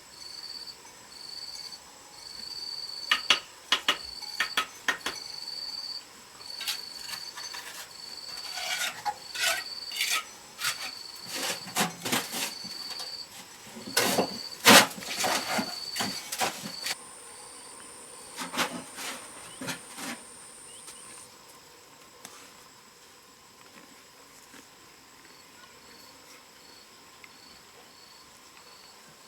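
Insect chirping in short, even high-pitched pulses, with scattered scrapes, clicks and knocks of hand work from a few seconds in until about two-thirds of the way through.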